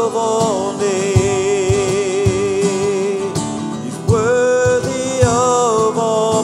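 Worship band music: an acoustic guitar strummed over a steady cajon beat, with a wordless sung melody on long held notes.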